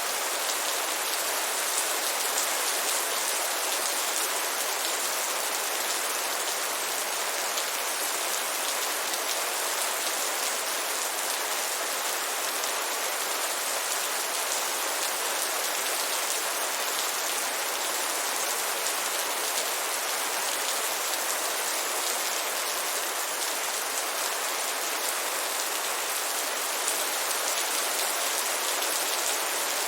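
Heavy rain falling steadily, a dense even hiss of drops on surfaces.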